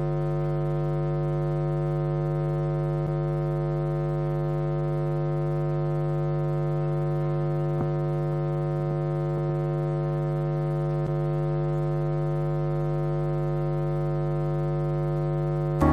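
Electronic keyboard holding one sustained chord, steady and unchanging, with a few faint clicks.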